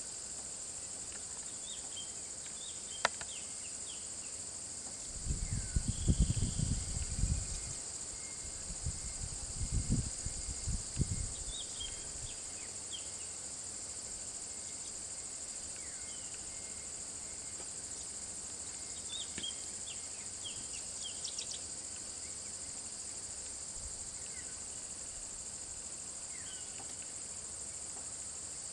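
Steady high drone of insects calling in the forest, with scattered short bird chirps. A sharp click comes about three seconds in, and two short spells of low-pitched noise, the loudest sounds, come about five and about ten seconds in.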